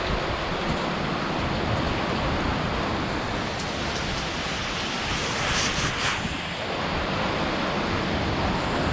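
Heavy wind-driven rain pouring steadily in a severe windstorm, with a brief louder swell of hiss about five and a half seconds in.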